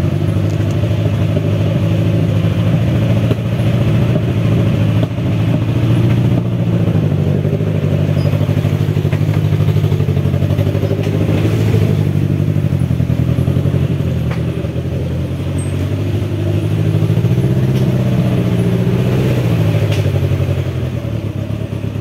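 Engine of a homemade 4x4 'Girico' off-road vehicle running steadily under way on a muddy track, with the revs rising for a couple of seconds near the end and then falling back.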